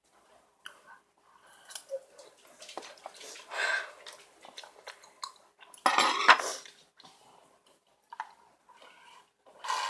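Eating sounds from a noodle meal: utensils clicking and scraping against a bowl, with two louder, noisier stretches about three and a half and six seconds in.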